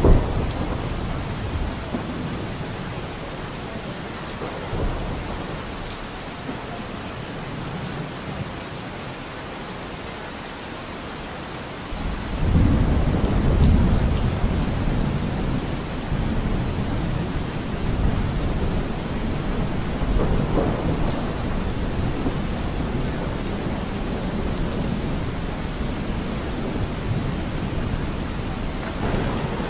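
Recorded rainstorm: steady rain hissing, with thunder. A loud low roll of thunder swells about twelve seconds in and rumbles on for several seconds, and fainter rolls follow later.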